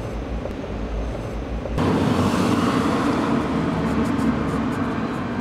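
Steady city traffic noise, cutting abruptly about two seconds in to a louder, fuller stretch of street noise.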